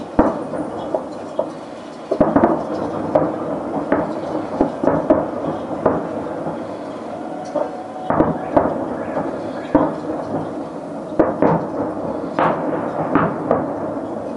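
Aerial fireworks shells bursting overhead: a string of sharp booms at irregular intervals, some in quick pairs, over a steady rumble.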